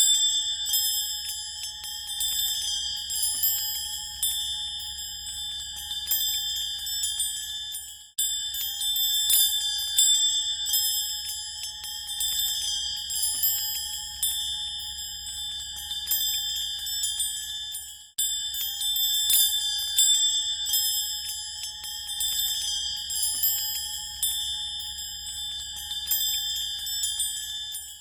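An HTC Infobar A02 ringtone: a dense, repeating pattern of high ringing tones struck in quick succession. The loop restarts twice, about every ten seconds, each time after a brief break.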